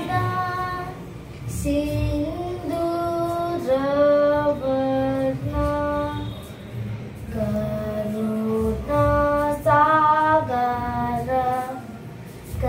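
A young boy singing a devotional song to Lord Ganesha, in long held notes that step up and down in pitch, with a short pause about a second in and another near the end.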